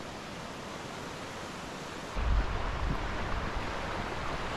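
Steady rushing noise of a river. About two seconds in it grows louder, and a low rumble of wind buffeting the microphone comes in.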